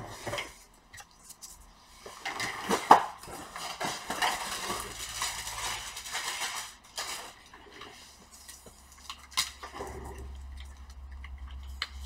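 Scattered clinks, clatter and rustling of hard objects being handled while a laptop charger and its cable are fetched, sharpest about three seconds in and again later. A low hum comes in about halfway and grows stronger near the end.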